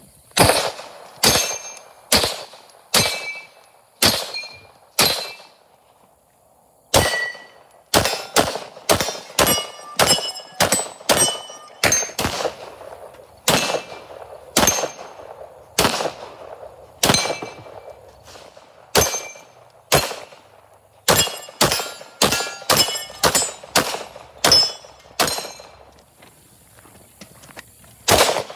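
Handgun shots fired one after another, roughly one a second with short pauses, many followed by the brief metallic ring of steel targets being hit.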